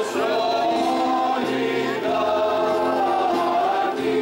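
Music: several voices singing a song together over instrumental backing, in long held notes with a steady bass line.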